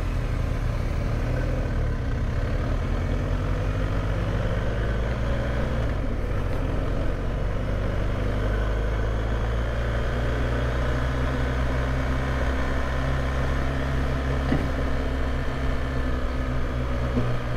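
BMW motorcycle engine pulling away and accelerating, climbing in pitch over the first few seconds and dropping at a gear change about six seconds in, then running steadily at cruising speed with road and wind noise.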